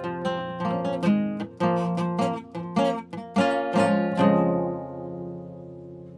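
Acoustic guitar played with quick plucked notes and strums, then a final chord left to ring and fade out for the last two seconds.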